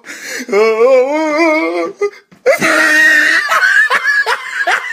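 A person laughing loudly: a long wavering laugh, a brief break about two seconds in, then a string of short laughs.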